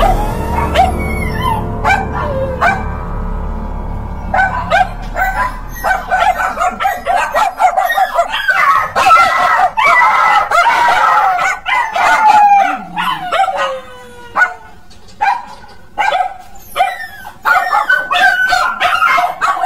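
Dog yelping and howling in distress while a cougar holds and bites it: many short, high cries with occasional longer howls that slide downward in pitch, one long falling cry about fourteen seconds in.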